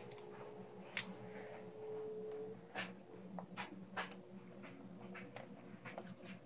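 Stiff plastic water tubing being handled and worked with a small hand cutter. There is a sharp click about a second in, then scattered lighter clicks and taps, over a faint steady hum.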